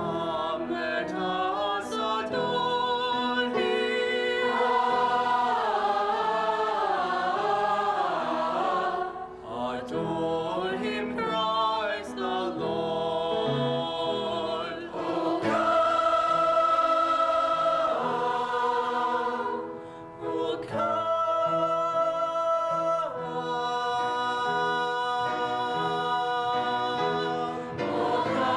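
A choir singing a Christmas carol in several voice parts, holding long notes with a wavering vibrato. It breaks off briefly between phrases twice.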